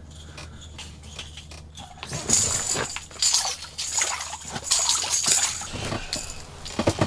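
A walleye thrashing in the water of an ice-fishing hole as it is hauled up and grabbed by hand: loud, irregular splashes and slaps starting about two seconds in.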